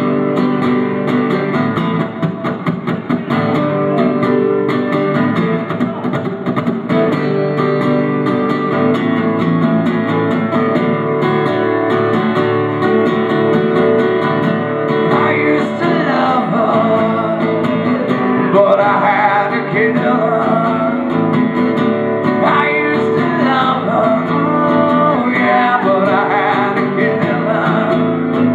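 Acoustic guitar strummed steadily in a live performance, with a man singing over it from about halfway through.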